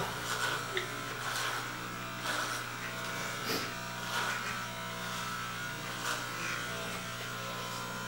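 Corded electric hair clippers running with a steady buzz while being run over a head of short hair, with brief louder strokes every second or so as the blades pass through the hair.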